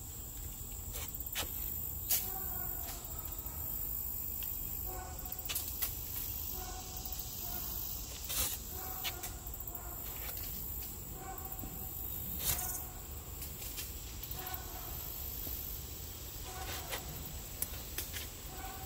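Steady high-pitched buzzing of insects in summer trees, with several sharp knocks scattered through it.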